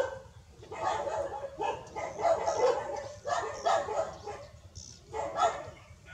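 Newborn puppies whimpering and squealing: a run of short, wavering cries, about one a second.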